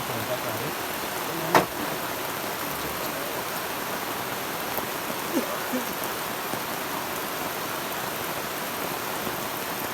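Steady rain falling, an even hiss, with one sharp knock about a second and a half in.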